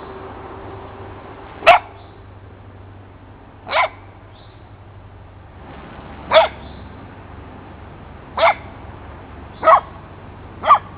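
Basset hound giving six single, short play barks, about two seconds apart at first and quicker near the end.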